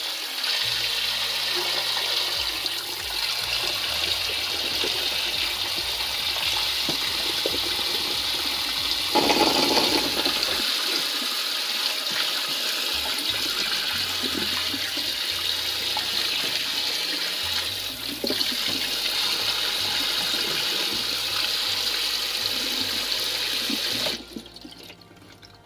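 Kitchen tap running in a spray onto root crops in a stainless steel basin in the sink as they are washed by hand: a steady rush of water, louder and fuller for about a second around nine seconds in. The water sound drops away suddenly near the end.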